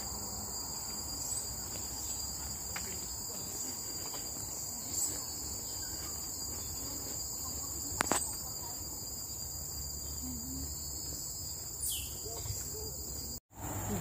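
Steady high-pitched buzzing of forest insects, with a faint low rumble beneath it. A single sharp click comes about eight seconds in and a short falling chirp about twelve seconds in, and the sound cuts out abruptly just before the end.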